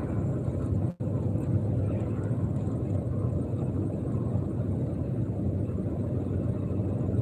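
Steady low road and engine rumble inside a moving pickup truck's cab. The sound cuts out for an instant about a second in.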